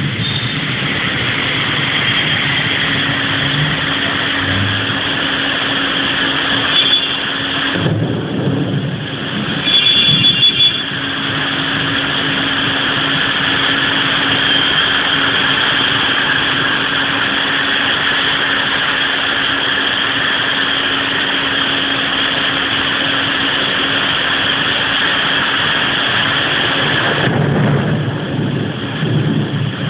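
Heavy rain pouring down in a steady hiss, with a steady low hum underneath for most of the time. Brief sharp high-pitched sounds cut through about 7 and 10 seconds in.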